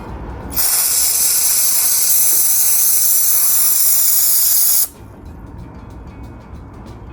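A steady hiss of spray, about four seconds long, that starts abruptly and cuts off suddenly.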